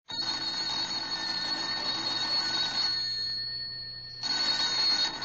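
Telephone bell ringing in a 1947 radio recording, the sign of an incoming call. It gives one long ring of about three seconds, pauses for about a second, then starts a second ring a little past four seconds in.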